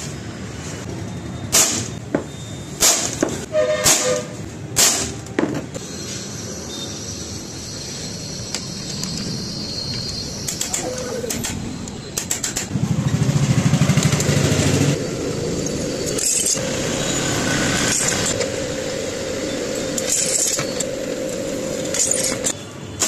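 A handful of sharp metal strikes, a hammer on a centre punch marking copper plate, some ringing briefly. A few seconds later a drill press runs and its bit cuts into the copper plate, with a steady tone under the drilling.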